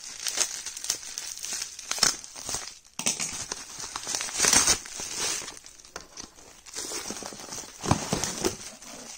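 Bubble wrap crinkling and rustling as it is handled and pulled out of a box, in uneven bursts, loudest about two, four and a half, and eight seconds in.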